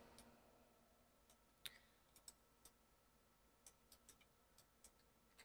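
Faint, irregular clicking of a computer mouse and keyboard against near silence, about ten clicks starting a little under two seconds in.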